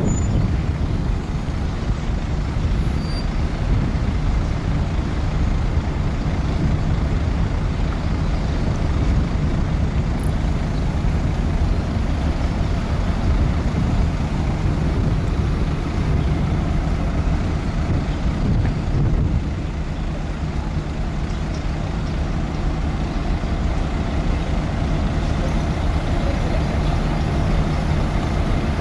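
Heavy marine diesel engines running with a steady low rumble.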